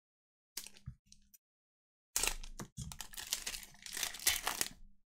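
Trading cards and their pack being handled close to the microphone. A brief rustle comes about half a second in, then a longer stretch of rustling with many small clicks from about two seconds in.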